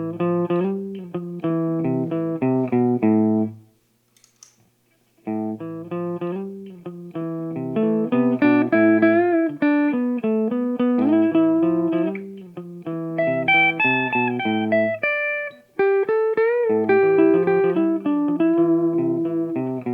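Clean electric guitar through a Marshall guitar cabinet playing a short riff. After a pause of about a second and a half, the riff repeats as a loop from a Ditto looper pedal, with higher single notes played over it in the middle.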